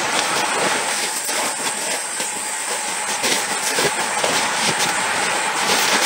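Steady forest ambience: a continuous hiss with an unchanging high whine running through it, and faint rustles and taps from someone moving about on a tent's sleeping mat.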